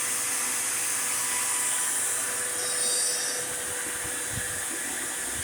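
CNC router spindle running steadily while its bit cuts a wooden board, with a dust vacuum hissing. A brief brighter high whine comes about three seconds in.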